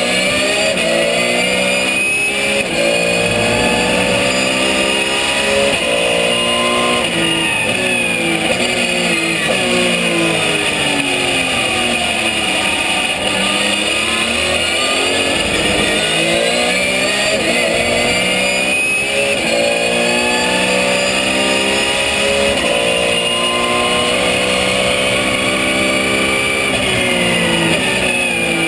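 Porsche 991 GT3 Cup's flat-six engine at full race pace, heard from inside the cockpit. It revs up through the gears with quick upshifts, then falls in pitch under braking and downshifts, several times over. A high whine rises and falls with it.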